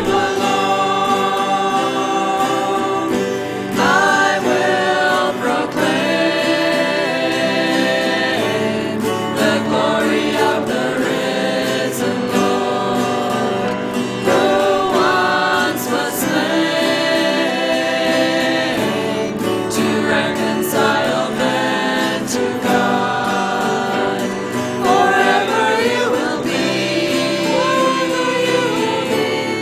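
Church singing: many voices singing a worship song together in sustained, unbroken phrases.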